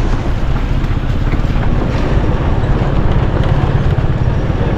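Vehicle driving on a rough, unpaved road: steady engine and road rumble with wind noise on the microphone.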